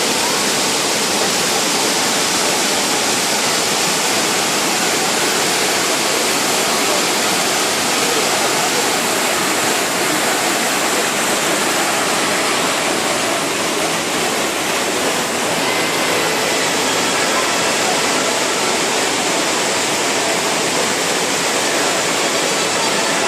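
Large waterfall, a heavy volume of water pouring over rocks, making a loud, steady rush.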